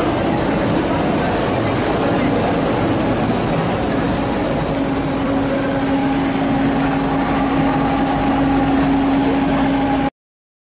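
SBB RABe 523 Stadler FLIRT electric multiple unit moving past close along the platform, with steady running noise. A steady humming tone joins about halfway, and the sound cuts off suddenly near the end.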